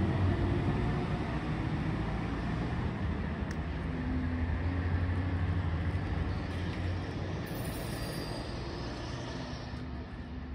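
DSB IC4 diesel multiple unit moving away along the track, a steady low rumble of its diesel engines and wheels slowly fading as it recedes. A faint high whine comes in briefly about three-quarters of the way through.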